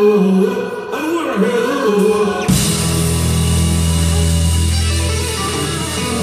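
Live church band playing the close of a worship song, with a moving melody over drums and bass, then a full chord held out from about two and a half seconds in.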